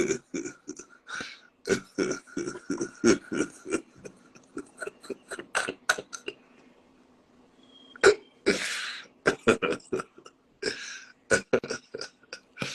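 A person's rapid, irregular short vocal bursts close to the microphone, like breathy laughs, coughs or throat noises. They stop for about a second and a half in the middle, then resume.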